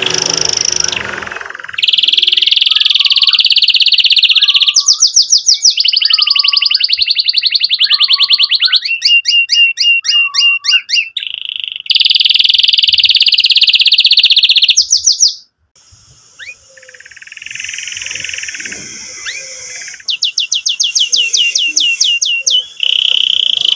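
Domestic canary singing loud, fast trills and rolls of rapidly repeated high notes. The song breaks off abruptly about two-thirds through, then returns more quietly before the trills pick up again near the end.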